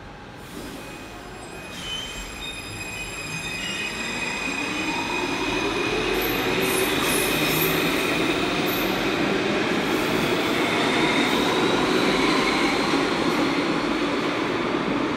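Alstom AS-02 metro train pulling away from an underground station platform. Its electric traction drive whines in several tones that rise in pitch as it accelerates, over growing wheel-on-rail noise. The sound builds for the first several seconds and then stays loud as the cars go by.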